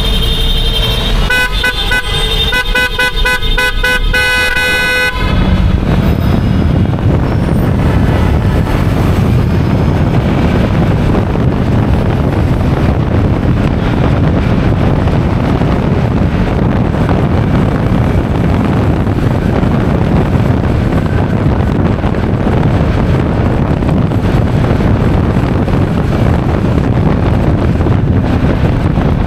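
A vehicle horn honking: one held blast, then a rapid string of short toots that cuts off about five seconds in. After that, a steady wind rumble on the microphone with traffic noise underneath.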